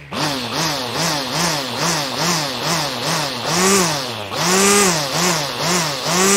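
Lawn mower motor running, its pitch rising and falling over and over about two and a half times a second. About four seconds in it dips briefly, then comes back in slower, louder swells.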